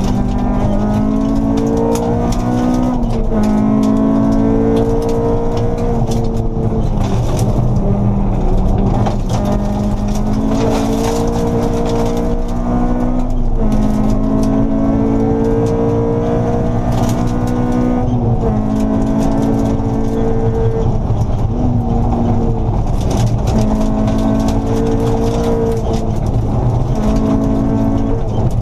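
Honda Civic rally car's engine heard from inside the cabin, pulling hard through the gears: its pitch climbs, drops sharply at each gear change, and climbs again every few seconds. Gravel road noise runs underneath, with sharp ticks of stones striking the car.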